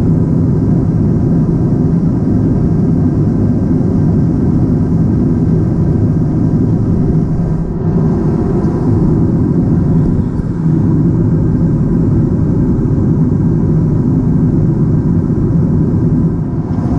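Steady low roar of cruise cabin noise inside an Airbus A350-900: rushing airflow over the fuselage and the drone of its Rolls-Royce Trent XWB engines.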